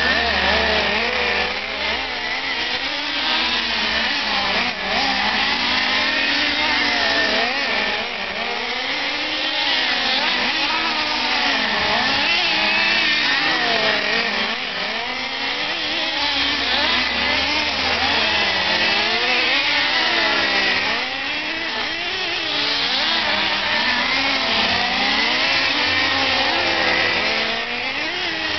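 Several nitro RC trucks' small two-stroke glow engines racing, high-pitched and buzzing, each revving up and dropping back again and again as they accelerate down the straights and slow for the turns, their pitches overlapping.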